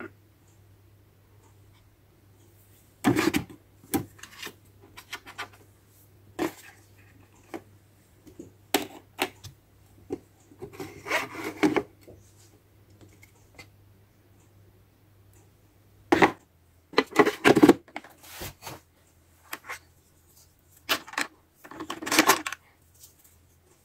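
Plastic toy kitchen pieces being handled: irregular clicks, knocks and rubbing as parts are moved and set down, in scattered clusters, with a faint steady low hum beneath.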